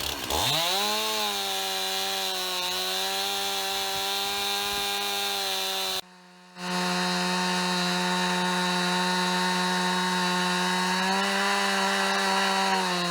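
Stihl MS 291 two-stroke chainsaw running at high, steady revs, ripping lengthwise through a log for the first straight cut along a board jig. The engine pitch sags briefly about half a second in, then recovers. The sound breaks off for about half a second around the middle, then carries on.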